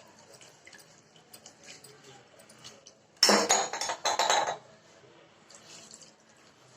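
Kitchen vessels clinking and clattering, with one louder burst about a second and a half long in the middle, while rinse water is strained out of the chhena through a cloth.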